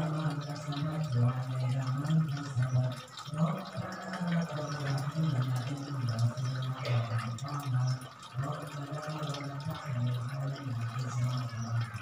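Water gurgling and trickling into a small bowl, over a low, uneven hum that breaks off briefly now and then.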